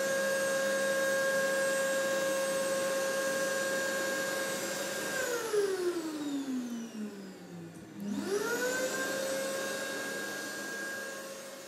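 Electric blower motor running with a steady whine over rushing air. About five seconds in it winds down, its pitch falling until it nearly stops near eight seconds. It then spins straight back up to full speed and runs steadily again.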